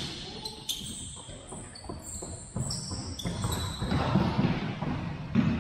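Indoor soccer on a gym's hardwood floor: a soccer ball being kicked and bouncing, and sneakers squeaking in short high squeals that start and stop, in an echoing gym.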